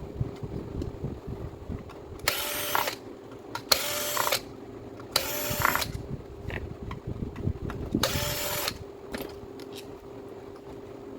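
A small handheld power tool runs in four short bursts of under a second each, with scattered clicks between them, over a steady hum.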